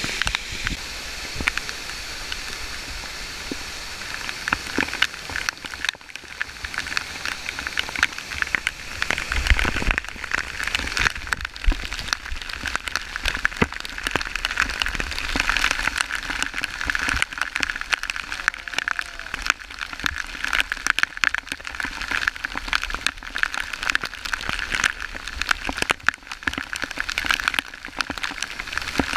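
Waterfall pouring down, with spray and drops striking close to the microphone in a dense, steady patter.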